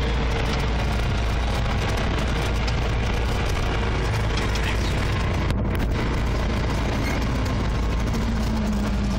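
Single-engine light aircraft's piston engine and propeller running steadily, heard from inside the cockpit.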